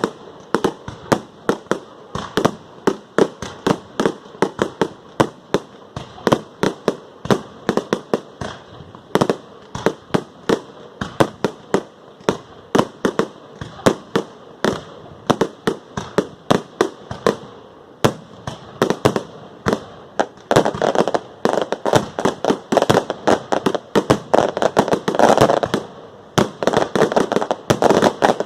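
Fireworks going off: a rapid run of sharp bangs, several a second, that grows denser about twenty seconds in, with a crackling rush between the bangs.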